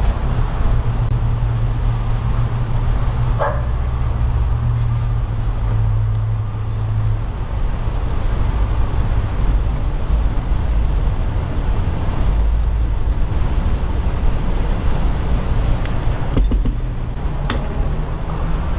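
Steady background noise and low hum picked up by a doorbell camera's microphone, with a dog barking once about three and a half seconds in and a couple of sharp clicks near the end.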